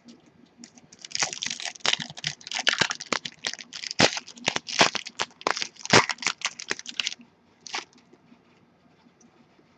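Foil wrapper of a 2013 Topps Strata football card pack being torn open and crinkled by hand: a quick run of crackling rips lasting about six seconds, with one last short crinkle near the end.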